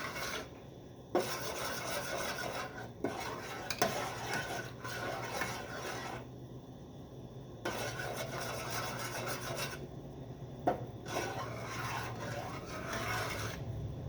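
A utensil scraping and rubbing around the bottom of a saucepan as boiling fudge mixture is stirred constantly, in stretches with short pauses and a few sharp knocks against the pan. A steady low hum runs underneath.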